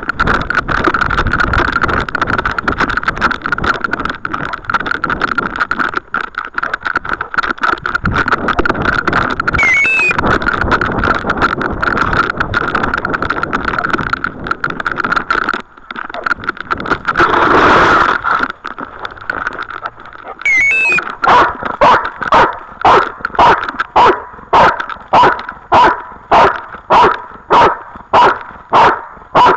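Dog-mounted camera's microphone picking up continuous rubbing and rustling as the dog moves, then, from about two-thirds of the way through, the dog panting hard right at the microphone, loud and very regular at about two breaths a second.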